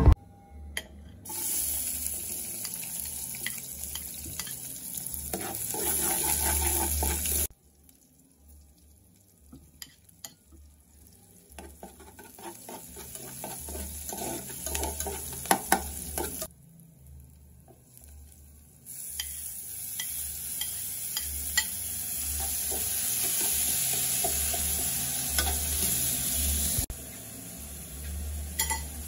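Sliced onions and then chopped tomatoes sizzling in hot oil in an aluminium pot, stirred with a metal spoon that clinks and scrapes against the pot. The sizzle cuts off and comes back suddenly a few times, and is much quieter in two short stretches.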